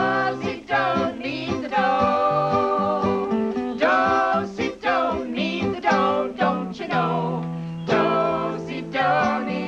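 Several voices singing an upbeat children's song to acoustic guitar accompaniment, with low bass notes stepping along under the tune.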